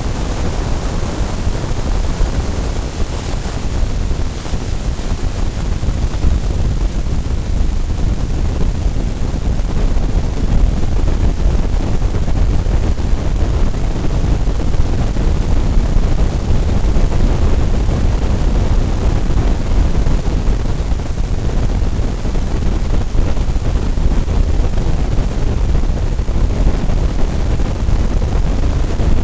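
Steady low rumble of road, tyre and wind noise inside a car driving at highway speed.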